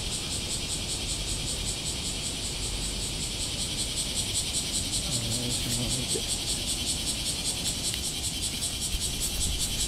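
Chorus of cicadas: a steady, high, fast-pulsing buzz.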